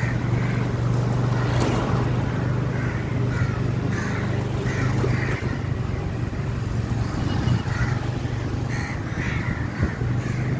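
Crows cawing repeatedly in short calls over a steady low engine hum. The hum drops away about halfway through and returns near the end.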